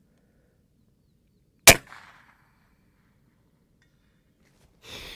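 FX Impact M3 .22 PCP air rifle firing a single shot about a second and a half in: one sharp report with a short tail. A brief soft hiss follows near the end.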